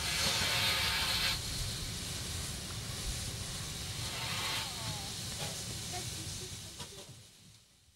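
Steam hissing from the steam locomotive OKMJ 14, loudest in a burst of about a second at the start and again around four seconds in, over a low rumble. It fades away near the end.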